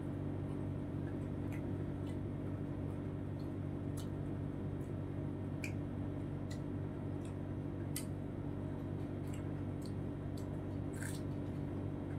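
Close-up eating sounds: wet mouth clicks and smacks from chewing and finger-licking, scattered irregularly, over a steady low room hum.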